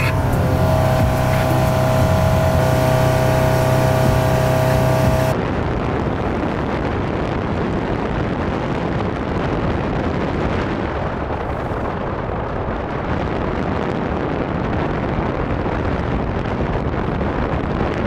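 A motorboat under way. For the first five seconds its engine runs close and steady with a strong hum, then it cuts off abruptly into a steady rush of wind and water with the engine in the background.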